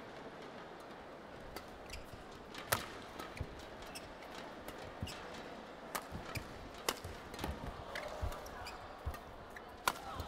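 Sharp cracks of badminton rackets hitting the shuttlecock during a men's singles rally, coming at irregular intervals. Duller thuds of players' feet on the court come in between, over the low murmur of a hushed arena crowd.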